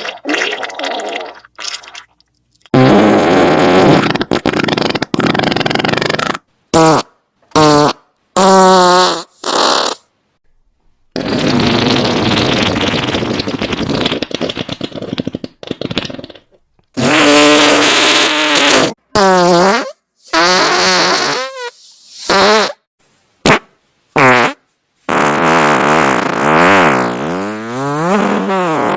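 A run of more than a dozen fart sound effects separated by short silences. Some are brief and others last several seconds, and several have a pitch that wobbles up and down.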